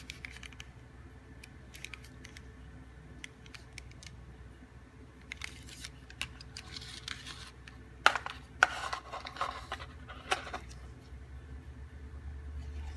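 Scattered small clicks and rustles, with a louder cluster of clicks and scraping between about eight and ten and a half seconds in, over a low steady hum. No ringtone melody is heard.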